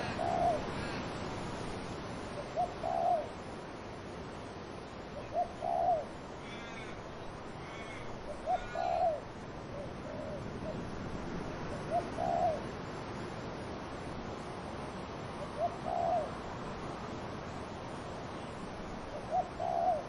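Dove cooing: a short low coo phrase, a brief note followed by a longer one, repeated about every three to four seconds, seven times, over a steady rush of wind in trees.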